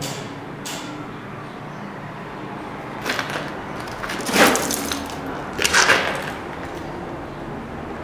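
Footsteps and scuffs on the bell-chamber floor: a few short knocks, the loudest about halfway through and two more close together near six seconds. The bells are not ringing.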